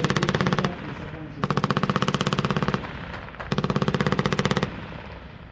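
Automatic gunfire in three long bursts of rapid, evenly spaced shots. The first ends just under a second in, the second lasts about a second and a half, and the third runs about a second.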